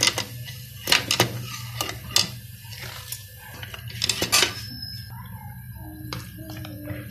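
A spatula scraping and knocking against a metal pot as macaroni is stirred, in irregular clatters, with a cluster about four seconds in. A steady low hum runs underneath.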